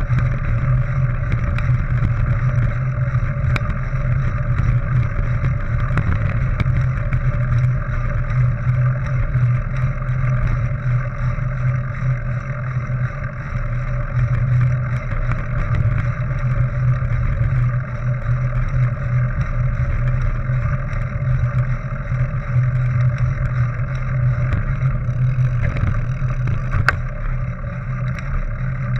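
Steady low rumble of a Focus Black Forest mountain bike's tyres rolling over a gravel track, mixed with wind noise on the camera's microphone, with scattered small clicks and one sharp click about two seconds before the end.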